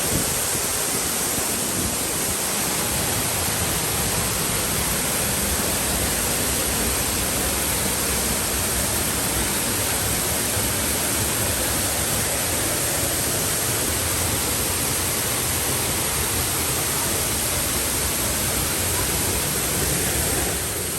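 Waterfall's rushing water, a steady, even rush of noise across all pitches that does not change.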